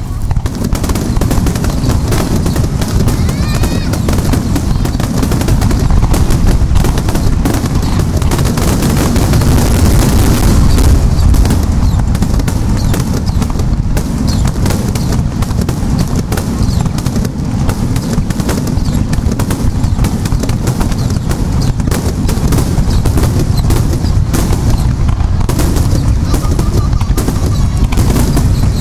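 Star mine aerial fireworks: many shells bursting in a rapid, continuous barrage, the booms overlapping with no gaps.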